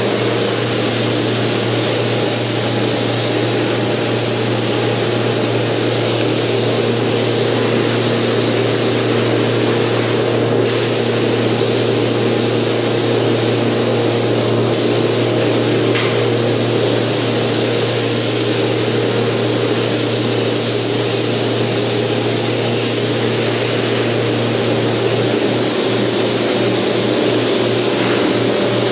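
Gravity-feed paint spray gun hissing steadily with compressed air as a coat is sprayed, over a steady low hum.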